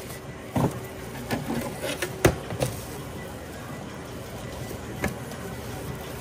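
Several sharp knocks and clatters of things being handled, the loudest a little over two seconds in and one more near the five-second mark, over a steady hum.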